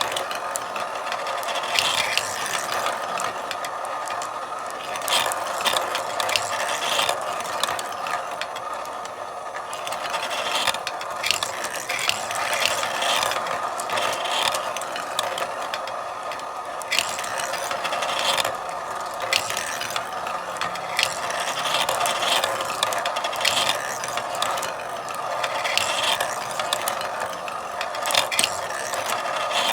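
Marbles running through a marble run: a steady rolling rumble with frequent sharp clicks and clacks scattered throughout.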